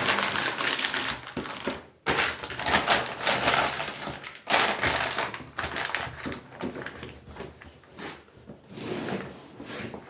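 Plastic sheeting rustling and crackling in uneven surges as it is handled and pulled over a tank of dairy feed, sealing it airtight so the feed does not spoil.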